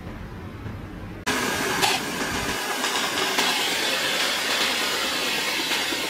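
Stationary belt sander sanding a tape-wrapped wooden cylinder pressed against the moving belt: a steady, loud sanding hiss that starts abruptly about a second in, after a low hum.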